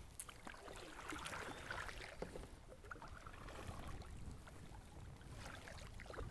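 Kayak paddle strokes: water swishing and dripping off the paddle blades, heaviest about a second in and again near the end, over a faint low rumble.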